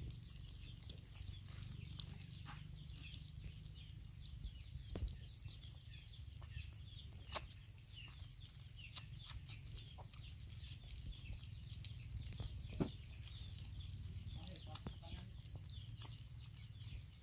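Faint, scattered animal squeaks and clicks over a low steady rumble.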